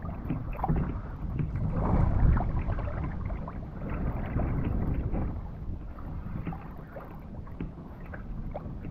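Wind buffeting the microphone and water sloshing against a kayak hull on a choppy sea, with scattered small knocks.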